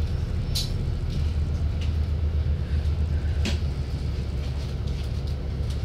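Alexander Dennis Enviro 400 double-decker bus heard from inside the passenger cabin: a steady low engine and drivetrain rumble. Two short sharp rattles or clicks stand out, about half a second in and about three and a half seconds in.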